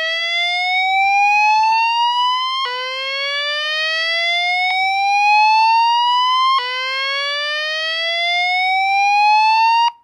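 An EST (Edwards) fire alarm speaker strobe, driven by a Notifier VEC-25/50X voice evacuation panel, sounds its slow whoop evacuation tone. A loud tone climbs slowly from low to high over three to four seconds, drops back and climbs again, three sweeps in all, and cuts off sharply near the end. It is the alarm signal that comes before the recorded evacuation message.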